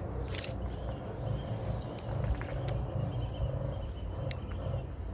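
Aircraft tow tractor's engine running with a steady low rumble as it tows a helicopter, with a few faint clicks and knocks.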